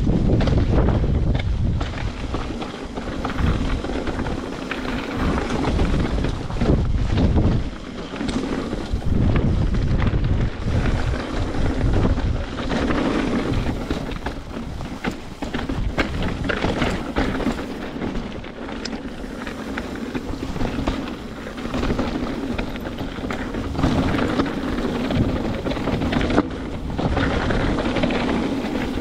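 Trek Remedy 8 mountain bike descending a rough downhill trail. Wind buffets the microphone over the tyres rolling on dirt and rock, with frequent clattering knocks from the bike over bumps.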